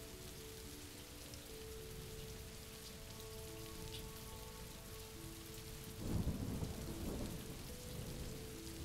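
Steady rain falling, with a low rumble of thunder rolling in about six seconds in, under faint held musical notes.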